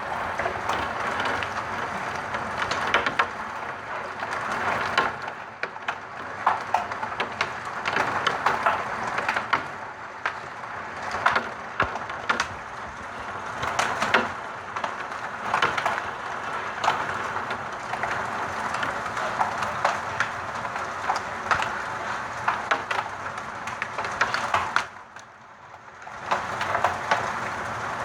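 Heavy rain and hail pelting down, a dense hiss full of irregular sharp clicks of hailstones striking hard surfaces. It drops away briefly for about a second near the end.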